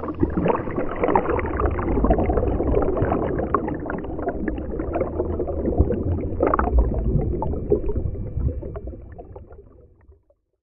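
Sea water sloshing and gurgling around a GoPro camera as it dips at and under the surface, muffled through the camera's waterproof housing. The sound fades out near the end.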